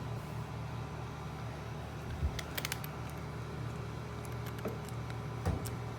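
Light clicks and soft knocks of screws and metal parts being handled while a dryer is reassembled: a knock and a short run of clicks about two seconds in, and another knock with a click near the end, over a steady low hum.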